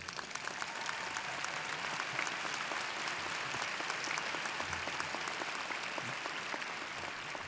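Large crowd applauding: thousands of hands clapping, swelling over the first second and then holding steady.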